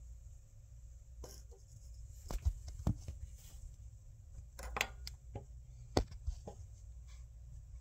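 Scattered light clicks and knocks, about a dozen at uneven intervals, over a low steady rumble: handling noise as a handheld camera is moved about in the tight space under the car.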